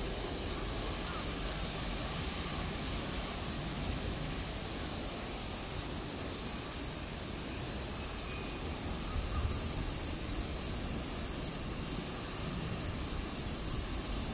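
Steady high-pitched insect chorus, an even continuous drone, over a low rumble of wind on the microphone.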